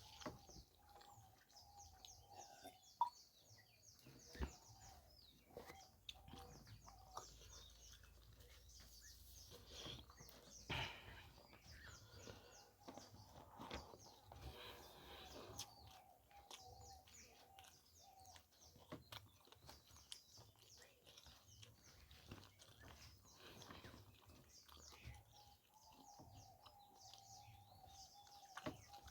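Faint, close chewing and wet mouth sounds from eating curry and rice: a run of soft clicks and smacks a few times a second, with an occasional louder knock.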